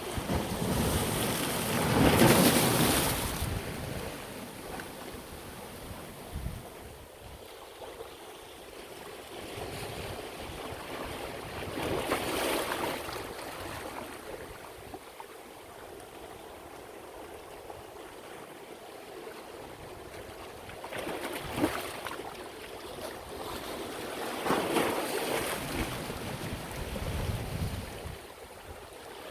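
Sea waves breaking on the shore every few seconds, each a rush of surf noise that swells and fades, the loudest about two seconds in, with a quieter wash of surf between.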